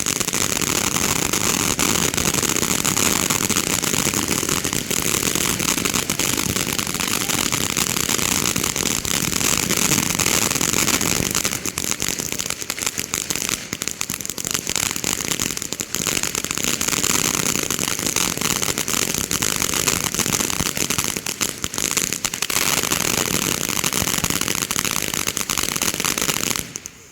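Fireworks crackling in a dense, continuous rattle of small bangs, with a few brief lulls, cutting off suddenly near the end.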